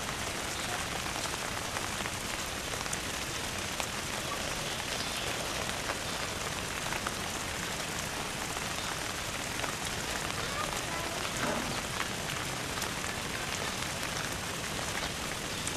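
Steady hiss and patter of falling water.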